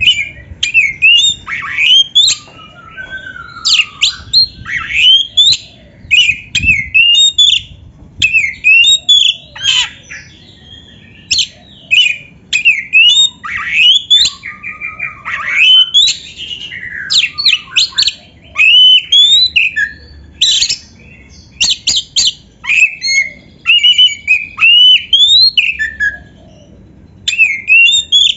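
Oriental magpie-robin (kacer) singing loudly: a continuous run of varied phrases made of quick rising whistles and sharp chattering notes, each phrase about a second long with short pauses between them.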